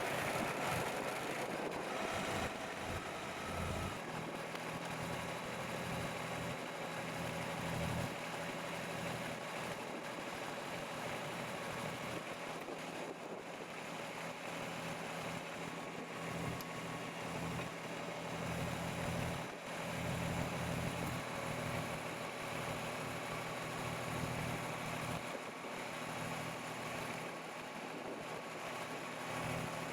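Kubota BX sub-compact tractor's three-cylinder diesel engine running steadily, its low hum swelling and fading over the stretch.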